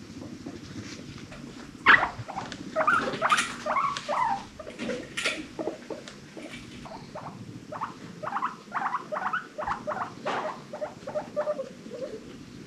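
Guinea pigs squeaking: a burst of short squeaks starts about two seconds in, then after a lull comes a quicker run of short repeated squeaks.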